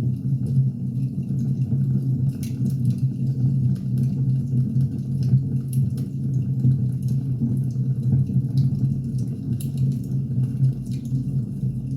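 Firewood burning in a fire: a steady low roar with irregular, scattered sharp crackles and pops.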